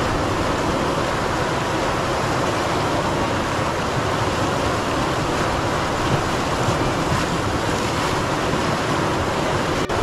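River rapids: white water rushing steadily over rocks, with a momentary dropout just before the end.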